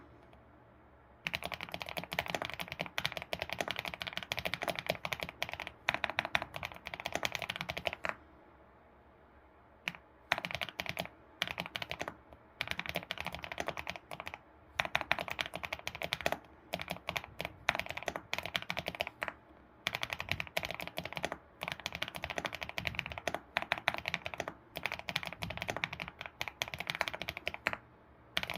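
ABKO keyboard being typed on in fast runs of clacky keystrokes, broken by pauses of a second or two, the longest about eight seconds in.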